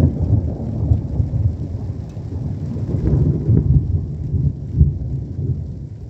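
Gusty wind buffeting the microphone in a rainstorm: a loud low rumble that swells and eases irregularly.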